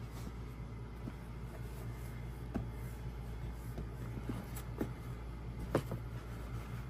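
Leather boots with metal buckles being handled and moved on a carpet: a few soft knocks and clicks, the sharpest near the end, over a steady low background hum.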